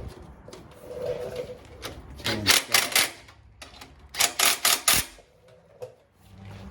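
Hand ratchet wrench clicking as bolts are run down by hand on a motorcycle rear wheel assembly: two quick bursts of rapid ratchet clicks, about two seconds apart, with a few lighter clicks around them.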